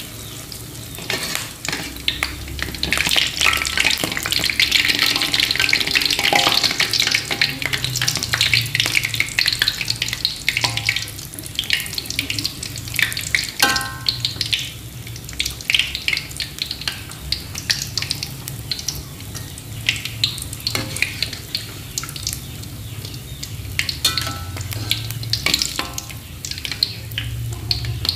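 Banana dough balls deep-frying in hot oil in a metal wok: steady sizzling and crackling, loudest in the first third. A metal spatula now and then knocks and scrapes against the wok, with a few short metallic rings.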